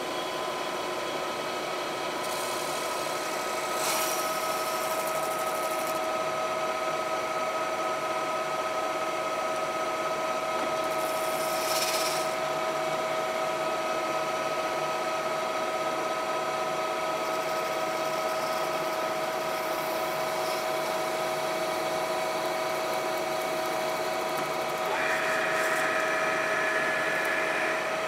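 Vertical boring mill running with a steady gear whine as its chuck turns a Nylatron tube and the boring bar cuts the bushing's bore. Brief hissing about 4 and 12 seconds in, and a higher tone joins near the end.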